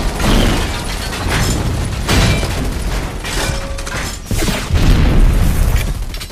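Action-film sound effects: a run of explosions and booms with sharp metallic impacts over a heavy low rumble.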